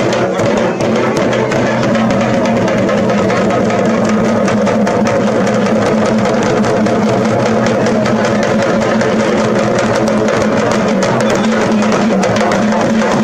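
Loud, fast drumming with dense rapid strokes over a steady sustained drone.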